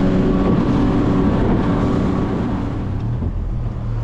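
Outboard motor running at speed on a small planing fishing boat, with wind and water rush. Near the end the engine note drops lower and a little quieter.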